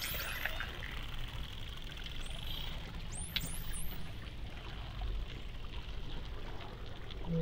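Underwater ambience: a steady watery wash with a low rumble, and a few quick high rising dolphin whistles about three to four seconds in.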